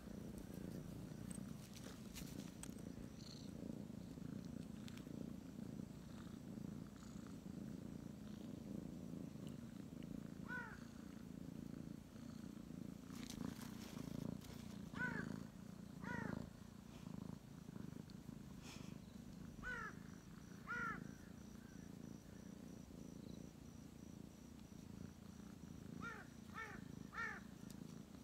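Tabby kitten purring steadily and noisily, with a snorting, grunting edge to it. A few short high chirps break in now and then, several of them in quick succession near the end.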